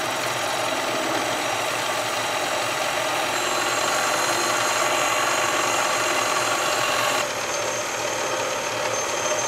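Small benchtop metal lathe running, its cutting tool turning a shallow clamp groove into spinning aluminum tubing: a steady whir with several steady whining tones. The sound shifts slightly about seven seconds in.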